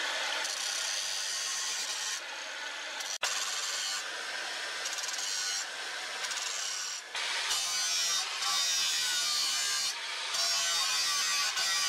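Angle grinder's abrasive disc grinding the edge of a leaf-spring steel machete blank, a steady rasping grind. It breaks off for an instant about three seconds in and grows louder from about seven seconds in.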